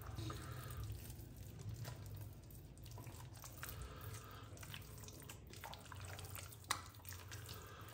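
Faint wet squelching and smacking of a hand kneading fish pieces through a thick marinade of gram flour, egg, tamarind pulp and spices in a glass bowl, with one sharper click near the end.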